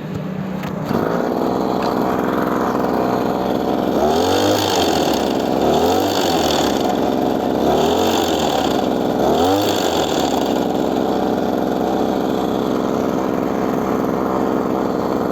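Small engine driving a Taiwan-type spray pump, starting up about a second in and running steadily, its pitch swinging up and down four times in the middle. The pump's bearing is broken, so the pressure rod barely moves and the pump builds no pressure.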